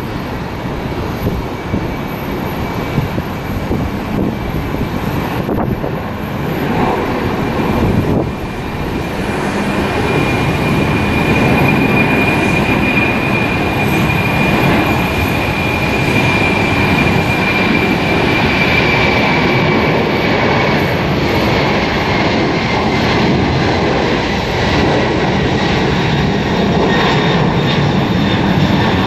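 Jet airliner's engines running, a steady roar that grows louder about ten seconds in, with a high whine that slowly drops in pitch.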